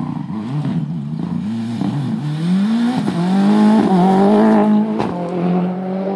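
Rally car engine at full throttle as the car approaches and passes close by, its note climbing and dropping with each gear change, loudest as it goes past about four seconds in. A few sharp cracks cut through it.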